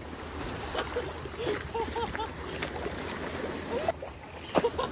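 Small waves lapping and washing against stone steps at the water's edge: a steady watery wash.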